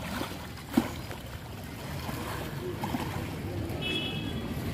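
Feet wading and sloshing through shallow, muddy pond water over a steady low motor hum, with one sharp knock about a second in and a brief high chirp near the end.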